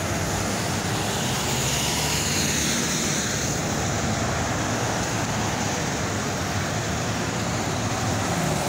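Road traffic passing close by: a steady rush of tyre and engine noise from cars and trucks. One vehicle's hiss swells and falls away about two to four seconds in.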